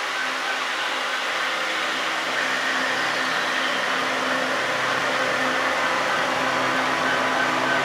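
HO scale model freight train rolling past, a steady whirring rumble of wheels on the track with a light, evenly repeated ticking, growing slightly louder.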